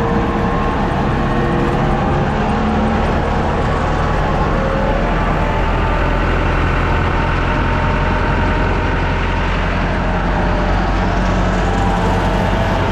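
Engine of a large farm harvesting machine running steadily, with a strong low hum and several higher tones that drift slightly in pitch.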